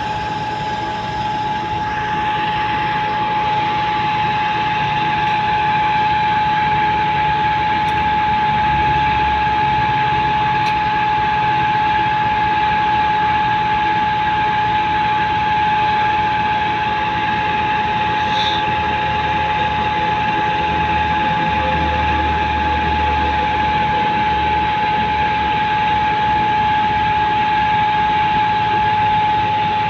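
Concrete truck's engine and machinery running continuously under load, with a single steady high-pitched whine over a rumble.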